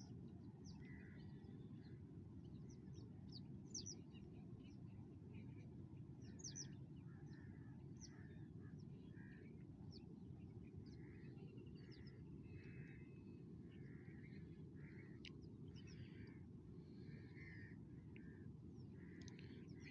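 Birds chirping and calling faintly, many short scattered calls, over a steady low outdoor rumble.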